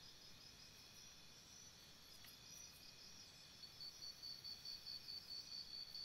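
Faint insects chirping in a high, evenly pulsed trill of about four chirps a second over a steady high insect drone; the pulsing drops out at the start and comes back about three and a half seconds in.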